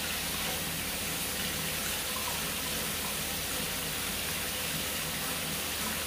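Water running steadily from a tap as a gutted milkfish is rinsed under it.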